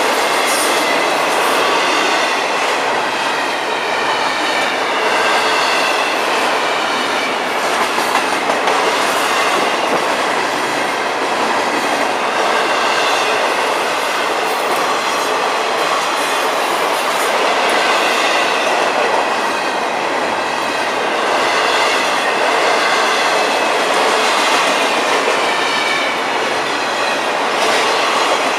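Double-stack intermodal container cars of a long freight train rolling steadily past, a continuous rumble with the wheels clattering over the rail joints.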